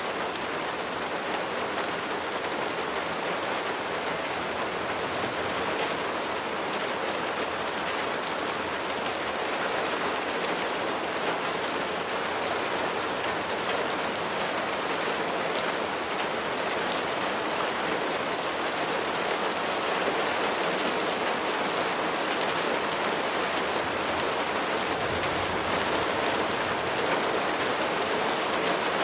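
Steady rain falling, with many individual raindrops striking a surface as small sharp ticks among the hiss of the downpour, growing slightly heavier toward the end.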